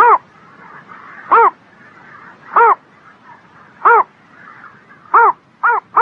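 A pond animal's short, arched call, repeated about every 1.3 seconds, with the calls coming closer together near the end.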